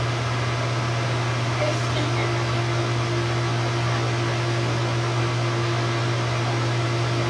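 Hot tub jets running: a steady rush of churning, bubbling water over a constant low hum, with a second steady hum joining about two seconds in.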